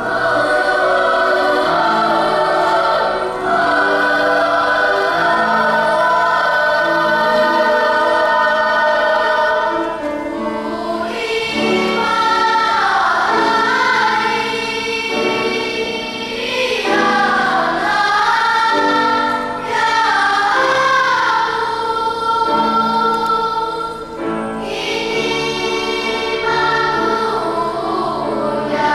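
Children's choir singing a folk song in several-part harmony, mostly held chords, with sliding, wavering melodic lines in the middle and short breaths between phrases.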